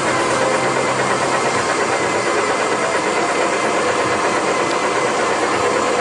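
Small engine of a ride-on tractor running steadily as it drives along the ride track.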